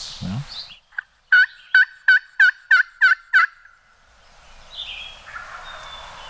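A hand-held friction turkey call (a round pot call) run in a series of yelps: a soft first note, then about seven loud, evenly spaced yelps at roughly three a second, stopping after about two and a half seconds.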